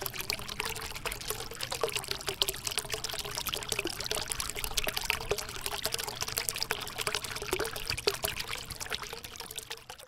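Water from a small home-built rock waterfall fountain pouring and splashing down over the stones in a steady trickle, with a steady hum underneath. It fades out at the end.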